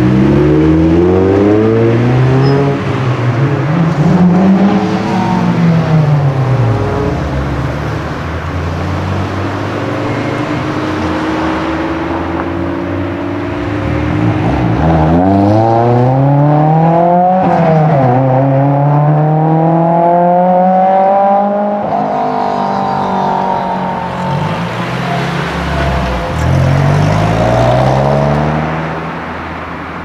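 Several cars accelerating away one after another, their engines climbing in pitch and dropping at each gear change. In the middle a Honda S2000's four-cylinder revs up, shifts, and pulls up through the next gear.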